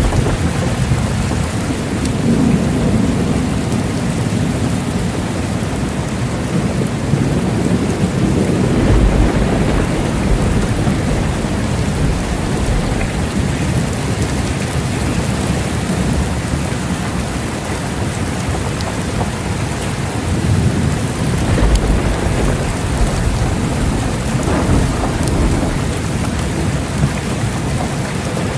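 Steady heavy rain falling, with low rolling thunder rumbling in and out several times: early on, around a third of the way in, and again past the middle.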